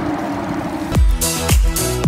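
A steady rushing noise cuts off about a second in as electronic dance music starts, with a heavy kick drum about twice a second.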